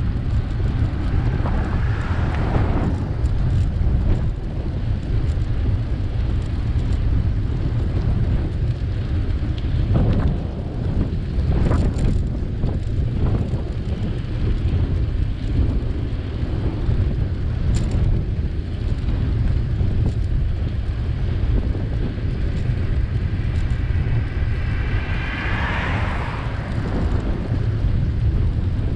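Wind buffeting the microphone of a camera riding on a moving bicycle, a steady loud low rumble. A brief high squeal comes near the end.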